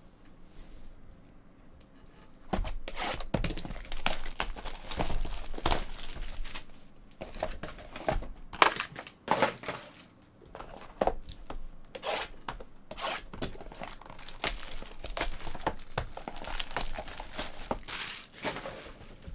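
Plastic shrink wrap being cut and torn off sealed trading-card boxes and crumpled, in a run of irregular tears with short pauses. It starts after a couple of quiet seconds.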